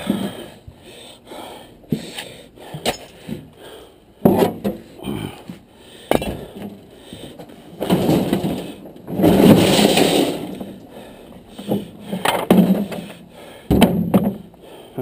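A run of sharp clanks, knocks and crashes, uneven in timing, from junk and debris being handled and thrown about during a yard cleanup. A longer, louder crash comes about nine seconds in.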